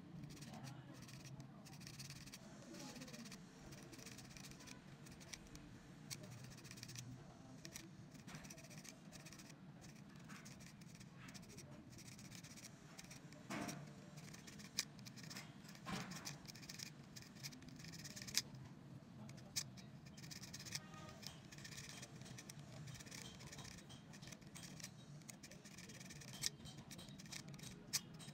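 Abrasive paper scraping over the copper commutator of a drill armature as it is turned by hand, cleaning the segments to cure sparking at the brushes: a faint, uneven scratching with scattered small clicks and a few sharper ticks.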